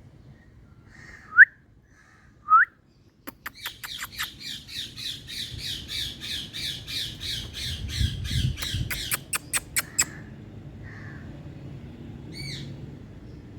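Indian parrot calling: two loud, short, rising squawks about a second apart, then a fast run of repeated chattering notes lasting about six seconds, then a few fainter calls near the end.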